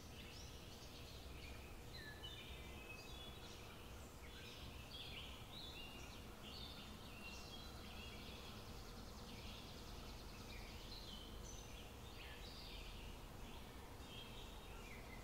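Faint birdsong in the background: many short chirps and quick slurred notes, several birds calling throughout, over a faint steady hum.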